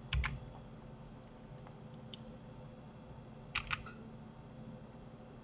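A few sharp clicks of computer keys and mouse buttons. The first, just after the start, comes with a dull thump; faint single clicks follow around one and two seconds in, and a quick pair about three and a half seconds in.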